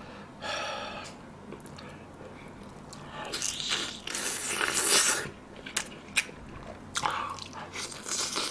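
Close-miked eating: a man biting and sucking meat off a pork spine bone held in his fingers, with wet slurping loudest around three to five seconds in and sharp lip smacks and chewing after.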